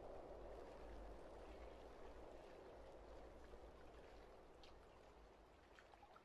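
Near silence: a faint, even hiss of background tone that slowly fades away, with a few tiny ticks near the end.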